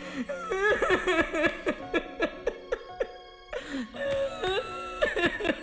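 Person sobbing and wailing in short, halting cries that bend up and down in pitch, with a brief lull about three seconds in.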